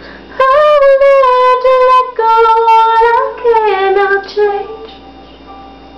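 A woman singing long, high, wordless held notes that glide between pitches, over faint backing music. The voice stops about five seconds in, leaving only the quiet backing.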